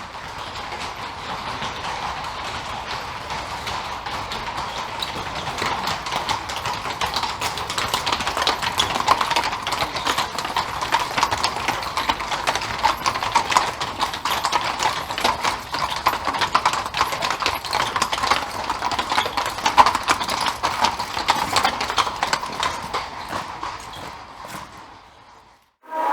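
Horse hooves clip-clopping in a quick, steady rhythm. They grow louder, peak through the middle, and fade away near the end.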